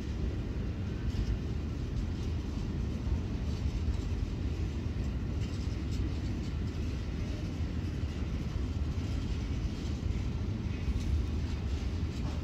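Container freight train rolling past, a steady low rumble of its wagons' wheels on the rails.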